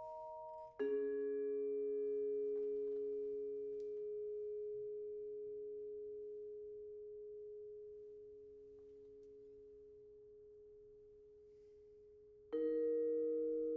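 Musser vibraphone: a chord struck with mallets about a second in rings on and slowly fades for more than ten seconds, then a new chord is struck near the end.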